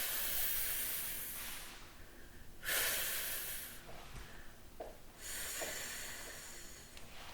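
A woman sounding out the letter F as a drawn-out hissing 'fffff', three times, each lasting one to two seconds.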